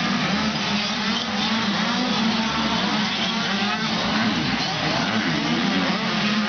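A pack of youth mini motocross bikes racing around the track, their small two-stroke engines revving up and down and overlapping without a break.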